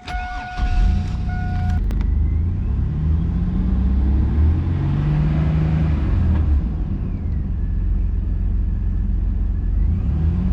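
2000 Chevy Blazer's 4.3-litre V6 starting about half a second in, then running, revving up briefly and settling back to idle. The exhaust runs quiet, its leaking flange now welded shut. A steady two-tone dashboard warning chime sounds over the start for the first couple of seconds.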